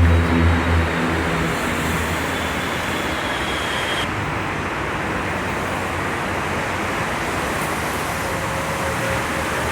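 Mexico City metro train running, a steady rushing rolling noise. A low motor hum fades out in the first second, and a thin high whine stops about four seconds in.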